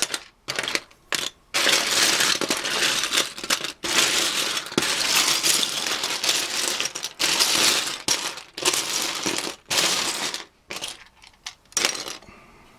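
Loose plastic Lego pieces clattering and rattling as hands rummage through a large pile, with a few separate clicks at the start and near the end.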